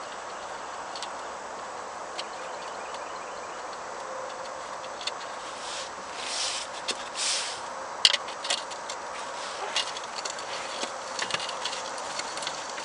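Scattered light clicks and taps, uneven in timing, over a steady background hiss, with two short hissing sounds about six and seven seconds in; the sharpest click comes about eight seconds in.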